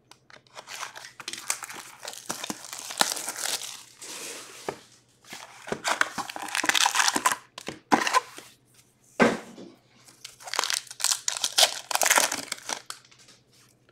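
Wrappers of 2022-23 Upper Deck Artifacts hockey card packs being torn open and crumpled: bursts of crinkling and tearing with short pauses between them.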